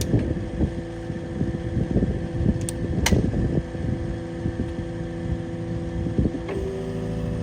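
Skid steer's engine running steadily, with wind buffeting the microphone. There are a few sharp knocks, and the engine note changes pitch near the end.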